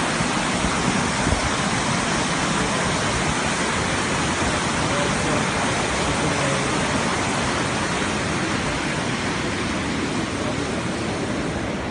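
Muddy flash-flood water rushing past in a torrent: a steady, even noise of churning water.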